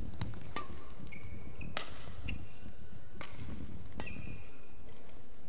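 Badminton doubles rally: a string of sharp racket strikes on the shuttlecock, each half a second to a second and a half apart. Between the strikes, short high squeaks of court shoes on the floor.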